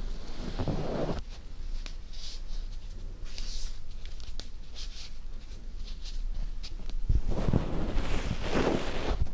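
Ear cleaning and brushing right on the silicone ear of a homemade binaural microphone: soft scratching and rubbing with small clicks and brief swishes. It grows into louder, fuller rubbing for the last two seconds.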